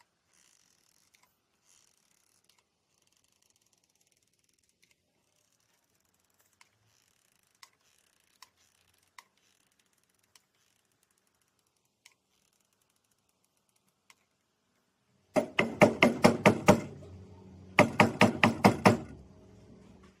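Near silence with a few faint isolated clicks, then near the end two loud bursts of rapid, evenly spaced knocking, each lasting about a second and a half.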